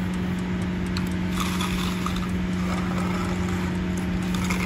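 An engine running steadily at one even pitch.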